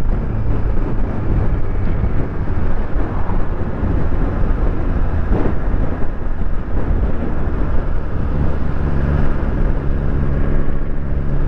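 Suzuki GSX-R1000's inline-four engine running steadily while riding, with wind rushing over the microphone.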